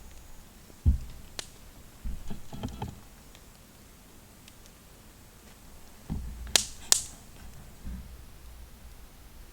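Scattered knocks and thuds from objects being handled, with a few sharp clicks; two close clicks about six and a half to seven seconds in are the loudest.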